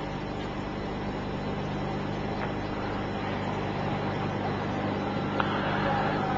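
Steady hiss of an old recording with a low mains hum underneath, slowly growing louder, with a faint click about five and a half seconds in.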